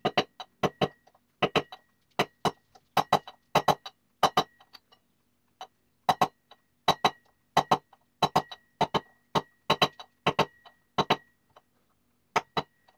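Rubber mallet striking a steel drift set in a Suzuki GS500 rear wheel hub to drive a wheel bearing: a long run of sharp taps, about two or three a second with a couple of short pauses, each with a faint metallic ring.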